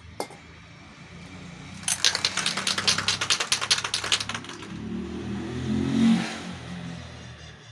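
Aerosol spray-paint can shaken hard, its mixing ball rattling rapidly for about two and a half seconds. A softer spray hiss follows as paint goes on.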